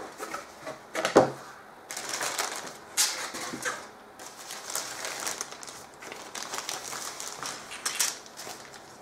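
The cardboard lid of a plastic model kit box being lifted, with a sharp knock about a second in. Then the crinkly rustling of clear plastic bags of sprues being handled and taken out onto the cutting mat.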